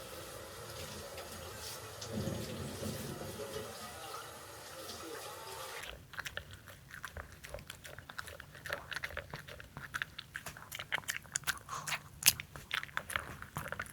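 A steady hiss, then from about six seconds in a run of crisp, irregular crunching and biting clicks: something hard and crunchy being chewed.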